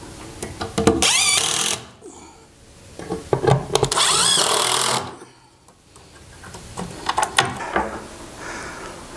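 Cordless drill-driver running in two bursts of about one and two seconds, its whine wavering in pitch as it drives screws into the hood. A few light knocks follow near the end.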